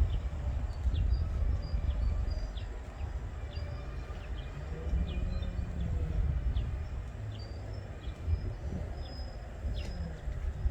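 Small birds chirping again and again over a steady low rumble.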